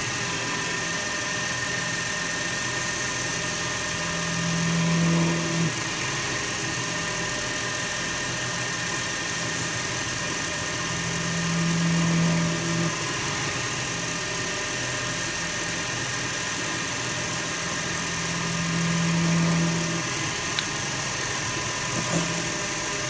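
CNC metal spinning machine running: a steady mechanical whir with a low hum that swells for a second or two about every seven seconds.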